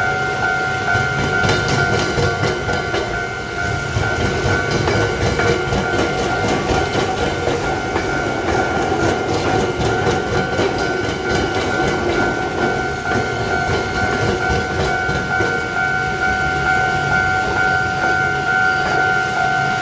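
Level crossing alarm sounding a steady ringing tone while an Iyotetsu train's wheels clatter over the track. The clacking is densest in the first fourteen seconds or so, then thins out.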